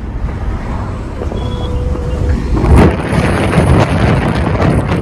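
Wind rushing in through an open car window and buffeting the microphone over the road noise of the moving car. It grows louder and gustier about two and a half seconds in.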